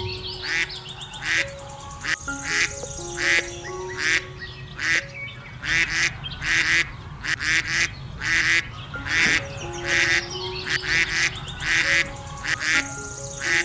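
Ducks quacking over and over, about one or two quacks a second, over a light melodic music track.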